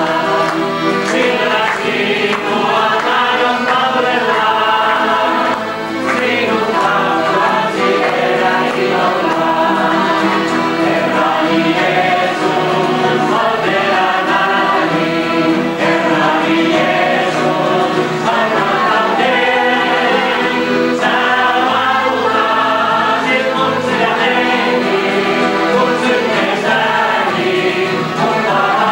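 A group of people singing a gospel song together, accompanied by strummed acoustic guitars.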